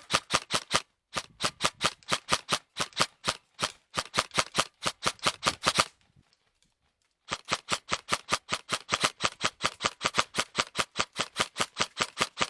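Airsoft gun firing rapid repeated shots, about eight a second, in long strings broken by short pauses, with a longer break about six seconds in.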